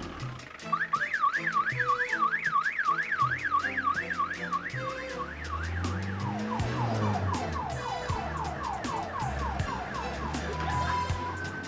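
Electronic police siren wailing rapidly up and down, switching about halfway to a fast run of falling sweeps, over background music with a steady beat.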